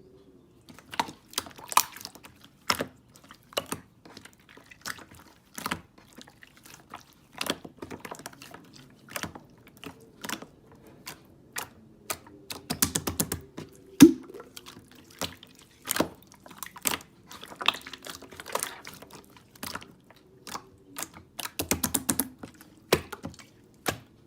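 Irregular sharp clicks and taps, scattered one by one and in quick flurries: one flurry about halfway through and another near the end.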